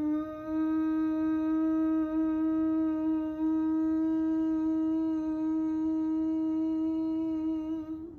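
Bhramari bee breath: a person humming with lips closed, one long steady hum held on a single pitch like a bee's buzz for about eight seconds, stopping just before the end.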